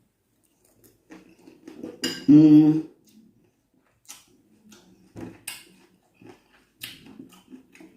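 Cutlery and dishes clinking in a few sharp clicks with soft clatter between, as someone eats at the table. A short pitched sound a little after two seconds in is the loudest thing.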